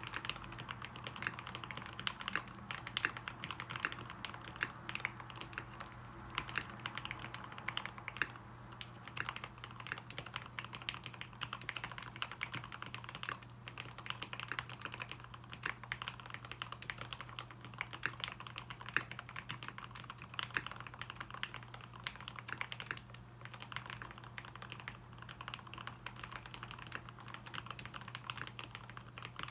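Dolphin V3 custom mechanical keyboard being typed on continuously, a dense, irregular stream of key presses. The switches are lubed linear Tealios with Cherry top housings and 55 g springs, with lubed stabilizers.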